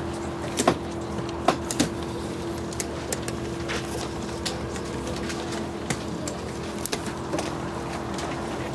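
A steady hum with scattered sharp clicks and knocks, the loudest ones coming in a cluster about half a second to two seconds in and again about seven seconds in.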